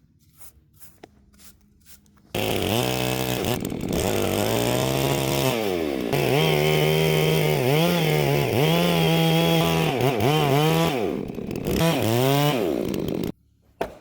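Chainsaw cutting into a tree stump: the engine comes in loud about two seconds in, its pitch dipping and recovering again and again as the chain bites and bogs in the wood, then cuts off suddenly near the end.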